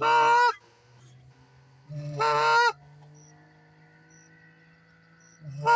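Goose honking: three long, loud honks, each held on one steady pitch, about two seconds apart.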